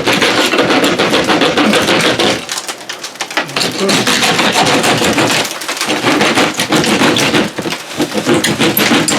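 A power cutting tool rattling rapidly as it cuts a hole through a drywall ceiling for an electrical box, easing off briefly about two and a half and five and a half seconds in.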